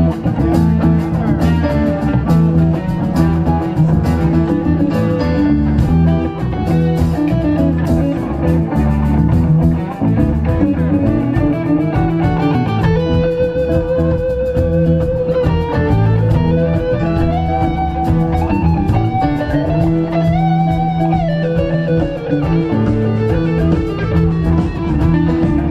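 Live rock band playing an instrumental jam with no vocals. An electric guitar takes the lead over bass, drums and keyboard, bending into notes and holding them with vibrato about halfway through and again later.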